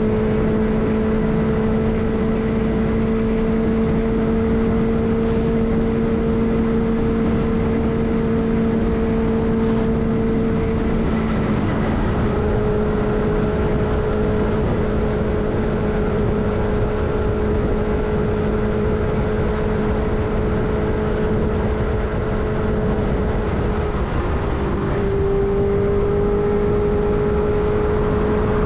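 Benelli TNT600i's inline four-cylinder engine running at a steady cruising pitch on the road, under a constant rushing noise. The pitch sags briefly about three quarters of the way through, then picks up again.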